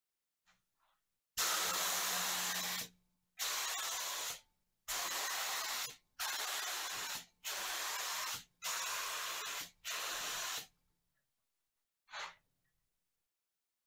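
Gravity-feed spray gun spraying finish in seven hissing bursts of about a second each, one after another, then one short burst near the end.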